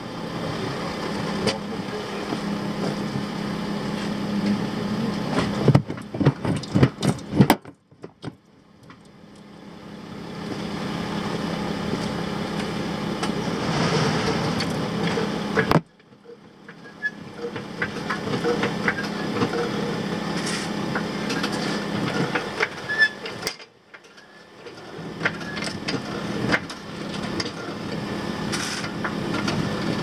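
Steady running and road noise of a car heard from under its front suspension, with a quick run of loud knocks about six to seven and a half seconds in and a few fainter knocks later. The knocks are the loud front-suspension knock being investigated.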